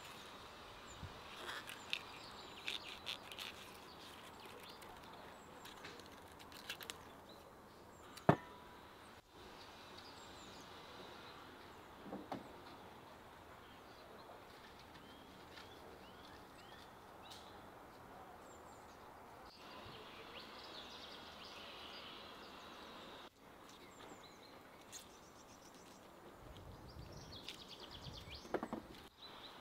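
Birds chirping over quiet outdoor ambience, with a few sharp clicks and scrapes of a kitchen knife peeling garlic cloves. One loud click comes about eight seconds in.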